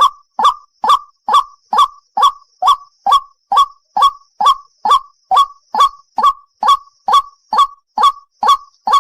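White-breasted waterhen (ruak-ruak) giving its single call over and over: a short note that rises sharply in pitch, repeated evenly about twice a second.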